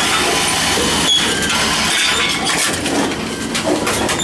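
Envipco CF-1500 reverse vending machines taking in and crushing containers: a dense, continuous clatter of clinks and knocks.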